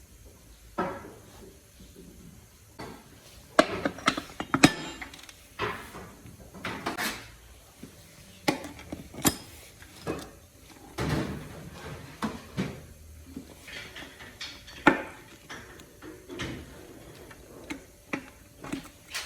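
Metal transmission parts and hand tools clinking and knocking as they are handled and set down during disassembly: irregular sharp taps and clanks, a few louder ones spread through.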